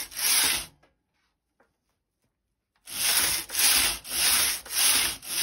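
Domestic knitting machine carriage pushed back and forth across the needle bed, each pass a rasping slide of about half a second. One pass at the start, a pause of about two seconds, then steady passes again, roughly two a second, as rows are knitted on a narrow group of needles with the rest held in hold position.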